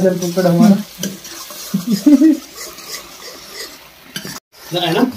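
A steel ladle stirring and scraping a thick masala in an iron kadai, which sizzles over a wood fire. Men's voices are heard briefly at the start and again near the end.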